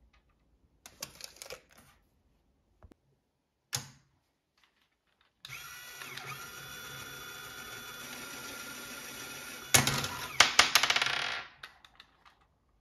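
Lego Technic electric motor and plastic gear train whining steadily for about four seconds. It ends in a sharp clack as the launcher arm fires, followed by about two seconds of plastic rattling and a small ball bouncing on the table. Before that come a few small plastic clicks and one louder knock.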